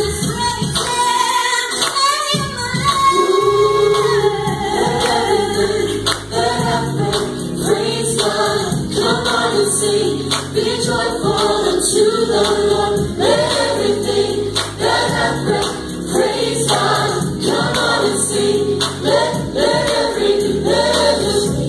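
Live gospel worship music: a vocal group singing together over band accompaniment with a steady bass line.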